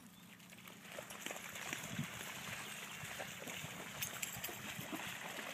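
Dogs splashing as they wade and run through shallow pond water: a steady sloshing with short splashes, which gets louder about a second in.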